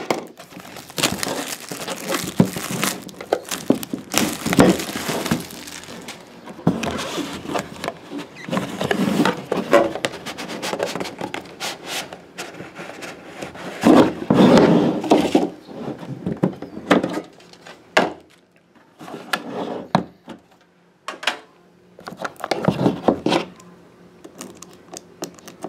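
Cardboard trading-card hobby box being opened and handled: rustling and scraping as the box slides out of its sleeve, with knocks against the tabletop, in irregular bursts with short pauses.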